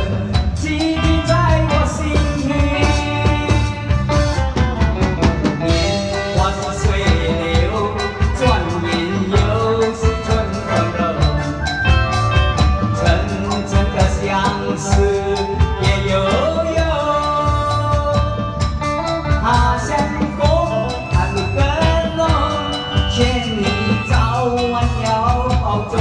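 A Chinese pop song playing, with a steady drum beat and a sung melody.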